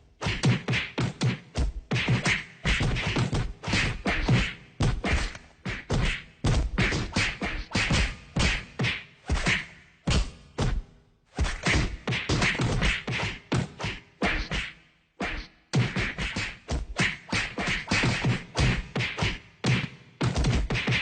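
Fist-fight sound effects: a rapid, nearly unbroken series of punches, slaps and body-blow thuds, pausing briefly twice.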